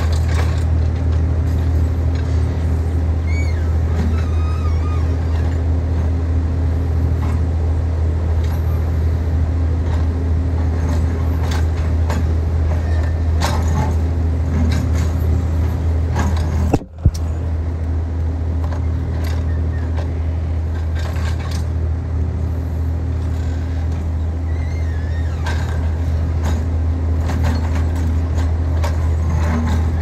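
Backhoe loader's diesel engine running steadily with a low rumble while the backhoe arm digs, with scattered short clanks and scrapes from the bucket and linkage. The sound cuts out for an instant about halfway through.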